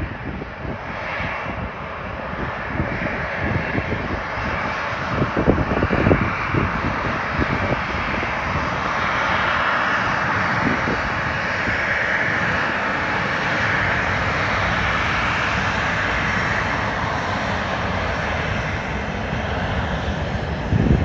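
Airliner's engines running loud and steady as the plane passes the runway, swelling to their loudest in the middle and easing slightly near the end. A few low thumps come about five to seven seconds in.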